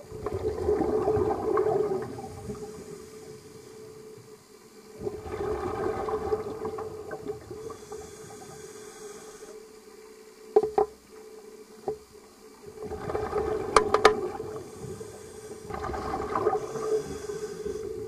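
Scuba diver breathing through a regulator underwater: four gushes of exhaled bubbles a few seconds apart, over a steady hum, with a few sharp clicks between them.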